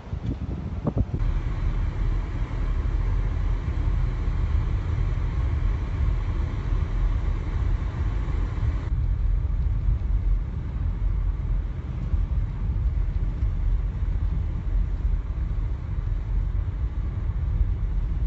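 Blizzard wind buffeting the microphone: a steady low rumble with a hiss over it. The hiss drops away suddenly about nine seconds in.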